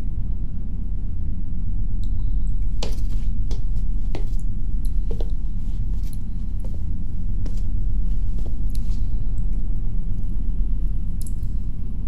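Steady deep wind rumble of an ambient soundscape, with scattered faint clicks and drips over it.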